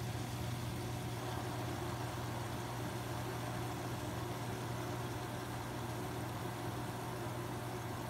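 Submersible pump running with a steady low hum as it sucks water out of a shallow puddle on a basement floor.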